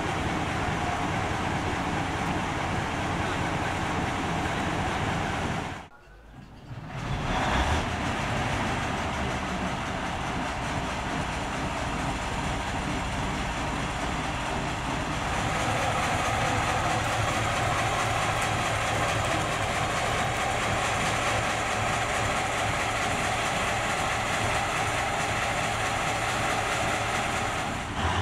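TU2 narrow-gauge diesel locomotive's V12 diesel engine running steadily, freshly repaired and being run in. After a short break about six seconds in, it runs louder from about halfway, with a steady whine joining it as the locomotive moves off.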